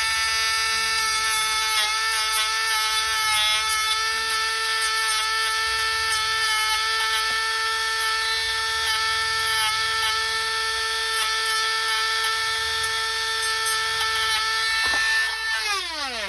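Dremel rotary tool running at a steady high whine while roughing up the surface of a cracked plastic drone leg so that epoxy will grip. Near the end it is switched off and the whine falls in pitch as it spins down.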